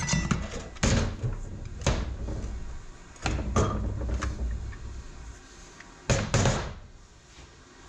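Metal parts of a TH350 automatic transmission being handled during teardown: a series of knocks and clunks, the heaviest a double clunk about six seconds in.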